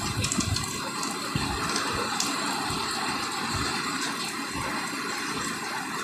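Heavy squall rain pouring down in strong wind, a steady hiss with a few faint low thumps.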